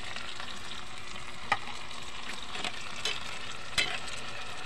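Oil sizzling steadily as chopped tomato and other vegetables sauté in a pan, with four short sharp clicks spread through.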